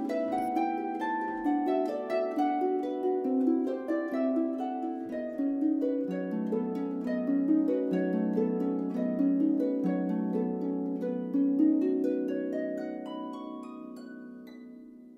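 Background music: a melody and chords of short plucked notes, fading out over the last few seconds.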